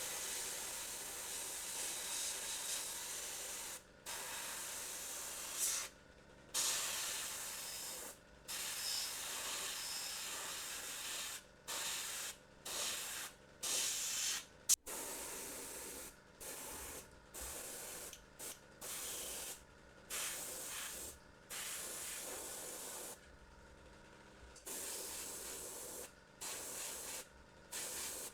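Black paint being applied to a 3D-printed resin miniature: a scratchy hiss in repeated passes of a second or two, broken by short gaps.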